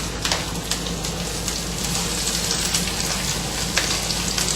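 Chopped peppers sizzling in hot olive oil in a frying pan: a steady crackling sizzle with small pops, over a faint hum.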